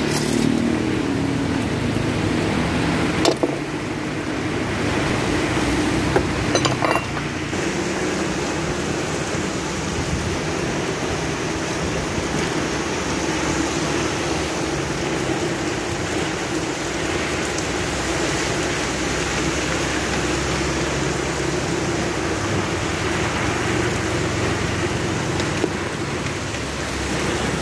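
Steady hiss of rain falling, with a few light clinks of bowls and utensils at the noodle cart, about three seconds in and again around six to seven seconds.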